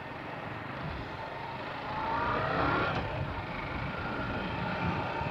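Suzuki Gixxer 155's single-cylinder engine running under way with road and wind noise. About two seconds in, its pitch rises as the bike accelerates.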